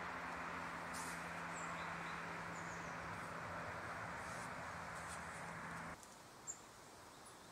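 Steady outdoor background hiss and low hum, with a few faint high bird chirps. About six seconds in it drops abruptly to a quieter hiss, followed by a single sharp click.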